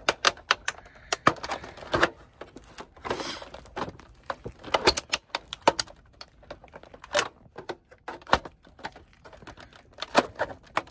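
Plastic casing of a PlayStation 3 Super Slim console clicking and cracking irregularly as a flat tool pries the stubborn shell apart at its clips.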